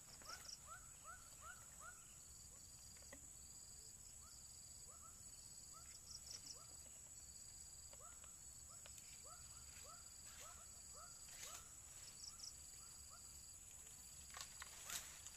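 Faint outdoor wildlife ambience: a steady high-pitched insect drone, with runs of short rising chirps from calling animals at about three a second and a few faint clicks.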